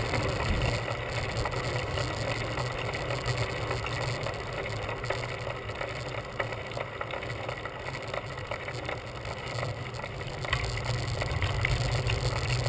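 Road bicycle rolling along a paved trail: steady tyre and wind noise on a handlebar-mounted camera's microphone.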